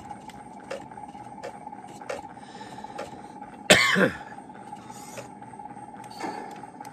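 A single short, loud cough about halfway through, over a steady hum with faint ticks about every three-quarters of a second.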